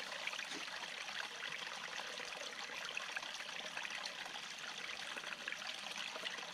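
Small forest stream trickling steadily, water spilling over mossy rocks into a pool.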